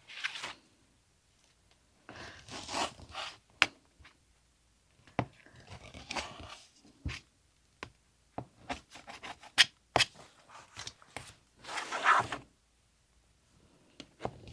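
Rotary cutter rolling through layered fabric against the edge of an acrylic template, in a few short scraping strokes. Between the strokes there are sharp clicks and taps from the cutter and template being handled on the cutting mat.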